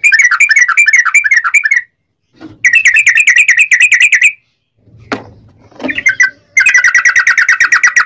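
Yellow-vented bulbul singing in fast rolling runs of rapidly repeated notes. There are three bursts of one to two seconds each, with a couple of short single calls between the second and third.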